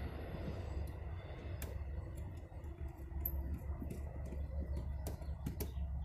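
Scattered light clicks and taps as a GFCI outlet and its short wires are handled and worked into an RV's outside outlet box, over a steady low rumble.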